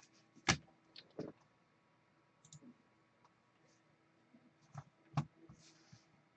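A few light, sharp clicks and taps from trading cards and packs being handled and set down on the table, the loudest about half a second in and again just after five seconds, with near quiet between.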